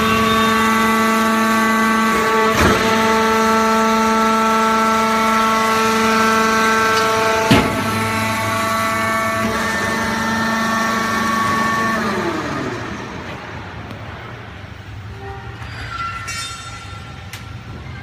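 Electric motor and hydraulic gear pump of a vertical baler's power unit running with a steady whine, with two sharp clicks. The whine fades out about two-thirds of the way through, leaving quieter background clatter.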